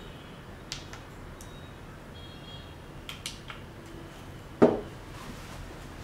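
A few light handling clicks, then, about four and a half seconds in, a single solid knock as an aluminium digital spirit level is set down on an OSB board.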